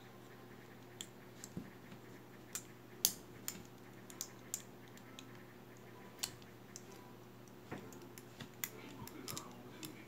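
Stainless steel SOG ParaTool multitool being handled: scattered small metallic clicks and snaps as its folding implements and scissors are swung open and shut, the sharpest about three seconds in.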